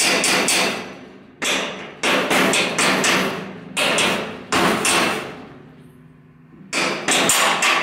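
Mallet blows on the steel front lower control arm of a kit-car frame, in about four runs of quick, sharp strikes. The arm is being knocked into a frame bracket whose tab is bent in slightly, so the fit is tight.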